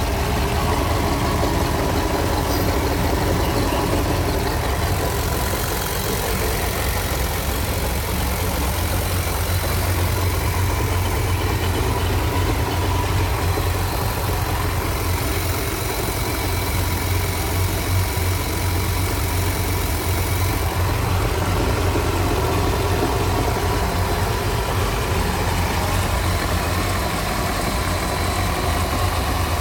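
Indmar-marinized GM 350 V8 inboard engine of a ski boat running steadily, with a deep low rumble and no change in speed.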